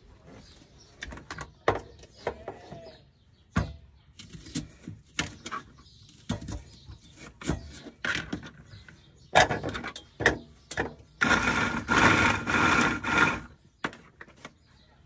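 Knife cuts and small knocks on a plastic cutting board, then about three pulls of a manual pull-cord food chopper near the end: a loud rattling whir as its blades mince onion and garlic.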